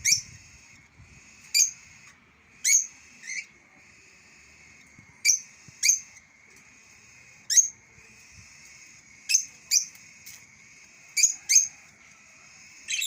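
A bird calling with short, sharp, upward-sweeping chirps, some single and some in quick pairs, about a dozen spaced every one to two seconds, over a steady high-pitched background hum.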